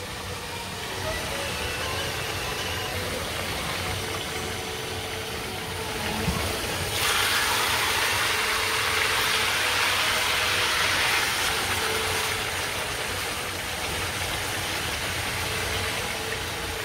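Skirt steak sizzling in hot oil in a frying pan over a steady low hum. About seven seconds in the sizzle grows louder and brighter for several seconds as a fork turns the meat, with a small knock just before.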